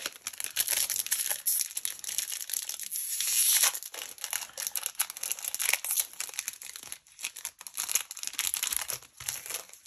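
A foil-laminated Magic: The Gathering booster pack wrapper being torn open and crinkled, in quick irregular crackles, with a longer stretch of tearing about three seconds in.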